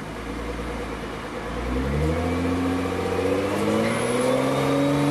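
Stage 4-tuned Nissan GT-R R35's twin-turbo V6 engine held at a low steady speed, then revved up slowly, its pitch climbing and the sound getting louder from about a second and a half in until near the end.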